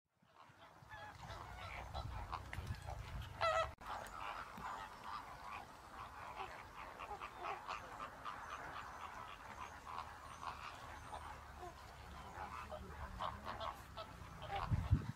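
A flock of waterbirds calling, many short calls overlapping, with one louder call rising in pitch about three and a half seconds in. Beneath them runs a low rumble that swells near the end.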